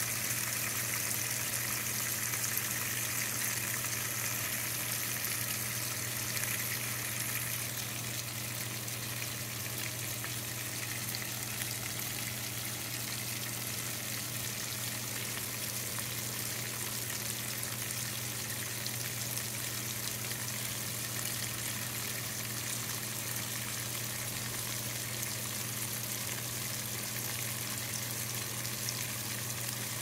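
KitchenAid top-loading washing machine filling: water pours steadily from the fill inlet into the tub and splashes on the clothes, a little softer after about seven seconds. Under it runs a steady low hum from the frequency converter that powers the American washer.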